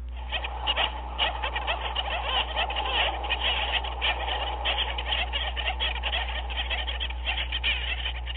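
Penguin colony calling: many short calls overlapping at once, over a steady low hum.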